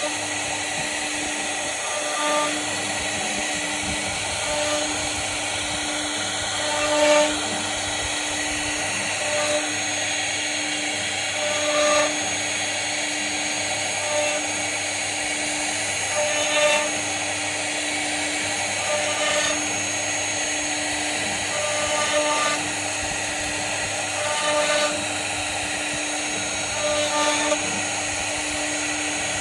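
CNC router spindle running steadily as it carves wood, a constant high whine that swells briefly louder about every two and a half seconds.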